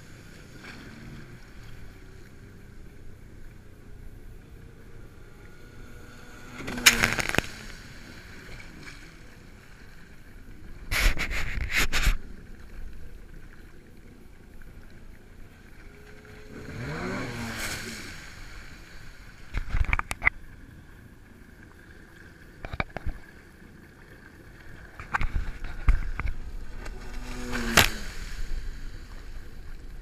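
Jet skis running on open water: a steady engine and water rush, broken every few seconds by loud splashes and slaps of spray against the hull and camera housing. About 17 seconds in, a second jet ski passes close by, its engine pitch falling as it goes past.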